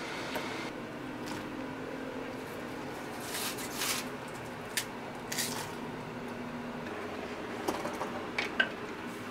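Kitchen handling sounds at a saucepan: scattered light taps of a wooden spoon and chopsticks against the pot, and a couple of short soft squishy rustles around the middle as sliced vegetables go into the sauce. Near the end come a few sharper clinks, the loudest a brief ringing one, over a steady low hum.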